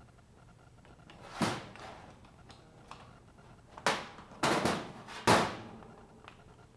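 Sharp knocks and clunks of a gas water heater control valve's metal body being handled on the worktop while its pilot fitting is worked loose: one about a second and a half in, then four close together between about four and five and a half seconds, the last the loudest.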